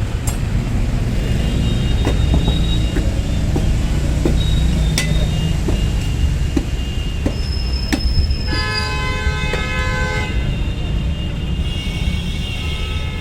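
Street traffic with a steady low rumble and scattered clicks, and a vehicle horn sounding for about two seconds near the middle.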